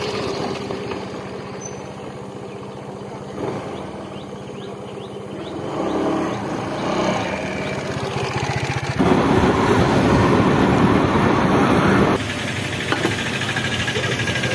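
Scooter engine idling steadily, then louder for about three seconds starting about nine seconds in, before the sound changes abruptly near the end.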